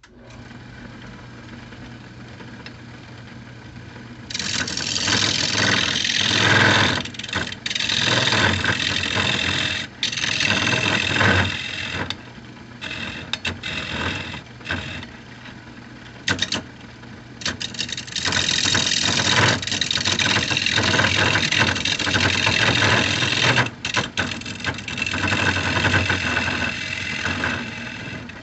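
Wood lathe motor starting up and running with a steady hum, then a hand-held turning tool cutting into a spinning cherry-wood bowl in long, loud scraping passes, with short breaks where only the motor hum remains.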